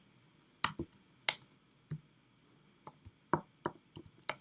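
Computer keyboard typing: about a dozen sharp key clicks at an irregular pace, with gaps between small clusters.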